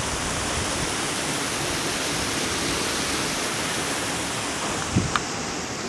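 Steady, even rushing noise, with two sharp clicks close together about five seconds in.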